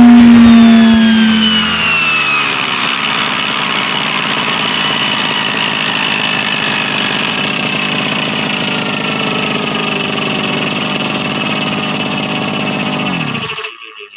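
Brush cutter with a 40 cm blade coming off full throttle: the engine drops to idle over the first two seconds while the spinning blade's whir slowly falls in pitch as it coasts down. Everything stops abruptly near the end.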